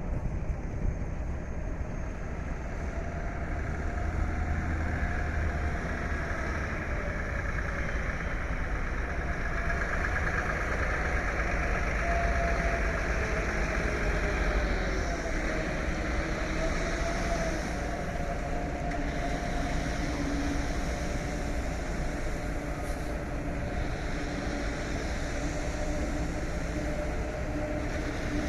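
A motor vehicle's engine running steadily under road noise, its pitch dipping and coming back up about halfway through.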